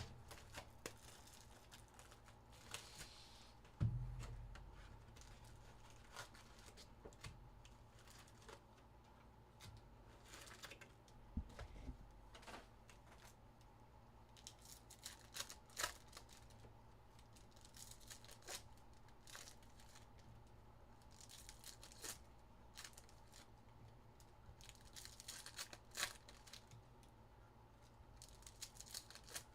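Faint tearing and crinkling of Panini Donruss football card pack wrappers being opened, with scattered light clicks of cards being handled. Two dull thumps land about 4 seconds in and again near 11 seconds, the first the loudest sound.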